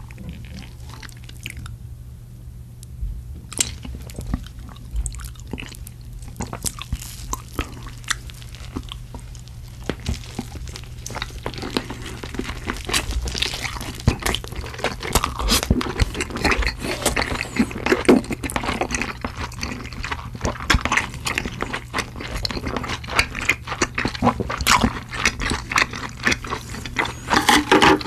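Close-miked eating: a few soft, wet mouth clicks at first, then from about eleven seconds in, dense crunching and chewing of crispy cheese-powdered fried chicken, loudest near the end. A steady low hum sits underneath.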